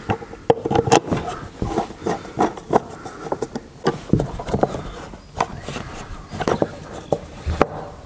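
Hand screwdriver driving the screws that hold the cover onto a plastic electrical switch enclosure, with irregular small clicks, knocks and scrapes.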